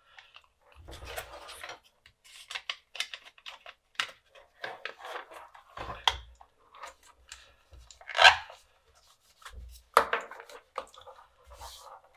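Plastic case of a USB-C laptop dock being handled and fitted back together: scattered clicks, rubs and scrapes of plastic parts, with the loudest crackle about eight seconds in.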